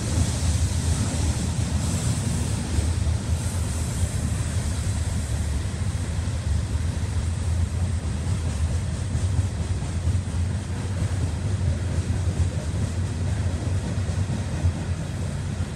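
Coal train's cars rolling by in a steady low rumble.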